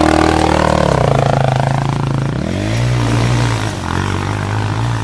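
Enduro dirt bike engine revving under load on a hill climb. Its pitch drops about a second in, then climbs and wavers up and down as the throttle is worked.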